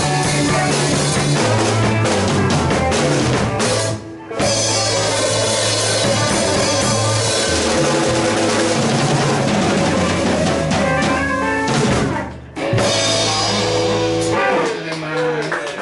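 Live rock band with electric guitars and a drum kit playing an instrumental passage. The band stops short twice, about four seconds and twelve seconds in, and each time comes straight back in. Near the end the low end drops out, leaving scattered guitar and drum hits as the song winds down.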